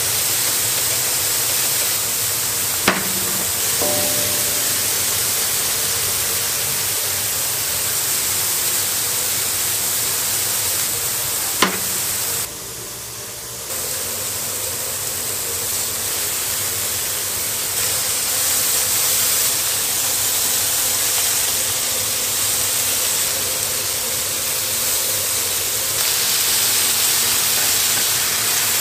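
Beef patties and bacon sizzling on a flat-top griddle: a steady hiss, broken by two sharp clicks, about three seconds in and about twelve seconds in.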